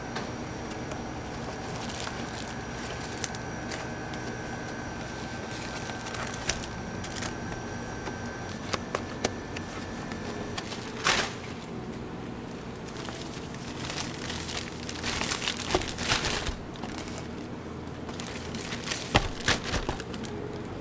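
Takeaway cake packaging handled by hand: scattered taps and knocks of a cardboard cake box being folded and set on a counter, then plastic bag crinkling in clusters in the second half, over a steady background hum.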